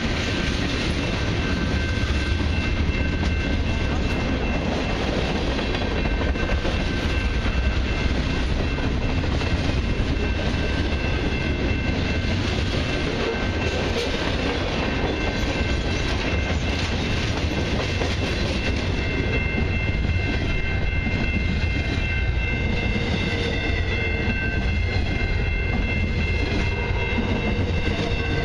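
Long freight train rolling past: the wheels of tank cars and then intermodal well cars running steadily over the rails, loudest in the low end, with a few steady high-pitched tones over the noise.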